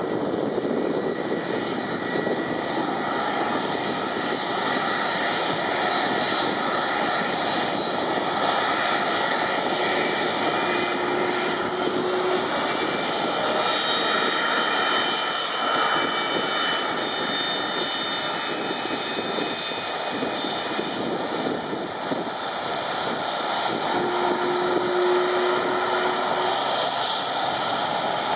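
Boeing 757 jet engines running at taxi power as the airliner rolls past close by: a steady rumble with a high whine made of several steady tones.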